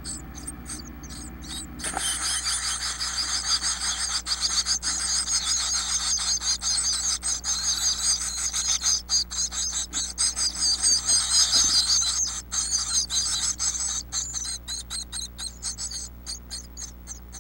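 A brood of nestling songbirds begging for food in a nest box. A dense, high-pitched chorus of cheeping starts suddenly about two seconds in as a parent arrives to feed them, then thins out and breaks up near the end. Scratching and rustling in the nest material comes before and after it.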